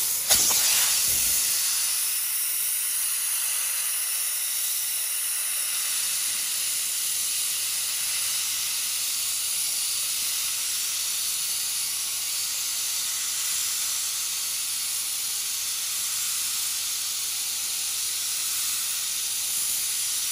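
Pressurized sandblaster blasting abrasive from its hand nozzle onto a rusty steel lawn-tractor mower deck to strip the rust: a steady, unbroken hiss of air and sand.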